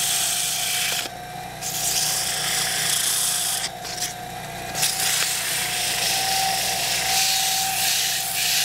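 Lathe motor running with a steady whine while 400-grit sandpaper is held against the spinning wooden cue shaft, a loud sanding hiss that breaks off briefly twice, about a second in and again around four seconds. The sanding brings the shaft wood down flush with the new ferrule.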